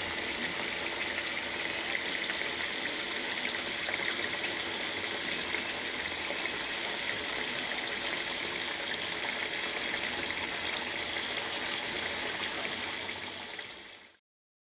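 Sweet potato slices frying in a pan of hot oil: a steady sizzle that fades out near the end.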